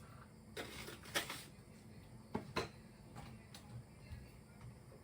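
A few light, irregular clicks and knocks of kitchen utensils against cookware, about six in the first three and a half seconds.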